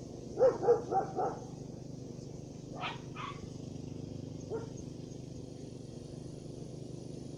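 A dog barking: a quick run of four barks about half a second in, two more around three seconds in and a single one a little later, over a steady low hum.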